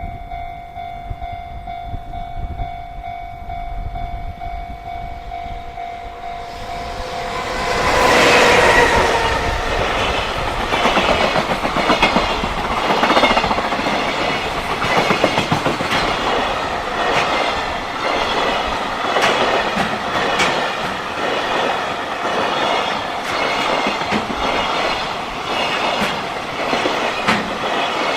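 Level-crossing warning bell ringing steadily over wind rumble, then a JR Freight train sounds a short horn about eight seconds in and passes close by, its wheels clattering rhythmically over the rail joints for the rest of the time.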